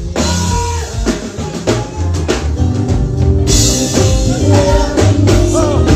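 Live band playing: a drum kit beat over a strong bass line, with a few held instrument notes.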